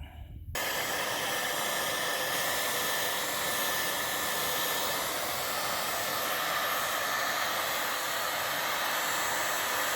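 A hand-held hot-air blower running steadily with a continuous rushing hiss, switched on about half a second in and cut off abruptly at the end, drying freshly sprayed paint on a plastic part before the clear coat.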